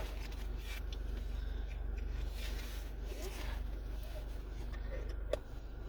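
Soft rustling and handling noise over a steady low hum, with a short click near the end.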